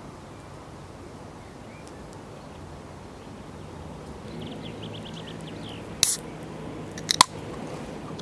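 A few sharp crunches and clicks close to the microphone: one loud crunch about six seconds in, then two or three quick clicks a second later, preceded by a fast faint run of ticks, over a steady low hum.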